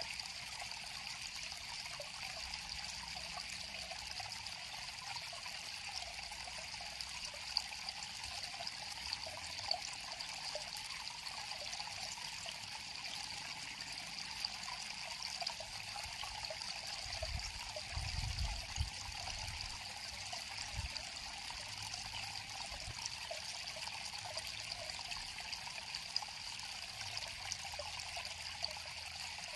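River water flowing with a steady trickling babble, with a brief low rumble a little past the middle.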